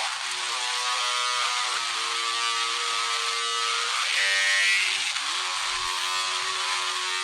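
Emergency Alert System alarm audio played in reverse: an electronic tone rich in overtones, stepping from one pitch to another every second or so, over a steady hiss.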